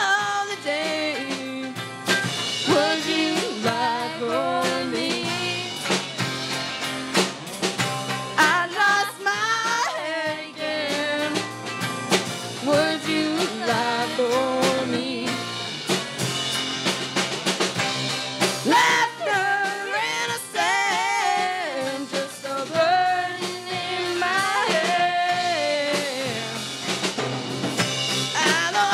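Live rock band playing a song: drum kit, electric guitars and bass, with a female voice singing over them.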